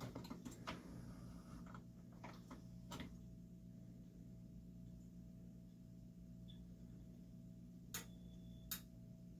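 Tascam CD-305 five-disc changer's mechanism working quietly as it switches to the third disc, with a few soft clicks and ticks at first and two sharper clicks near the end, over a faint steady hum.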